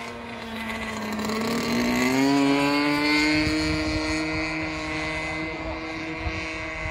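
A radio-controlled model plane's 30cc Moki petrol engine and propeller running in flight. The engine note climbs in pitch over about a second, then holds steady and louder.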